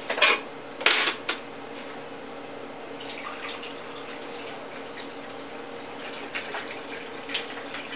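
A couple of clatters of a can against a bottle, then canned pineapple juice poured into a bottle: a faint, even trickle with a few small knocks.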